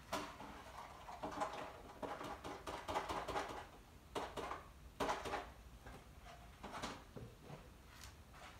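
Dry cat kibble rattling and crunching in short, irregular spells, with small clicks and knocks.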